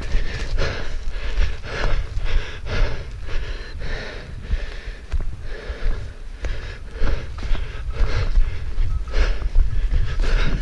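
A runner's heavy breathing, hard and rhythmic, at about one breath a second from the exertion of running, over a steady low rumble on the microphone.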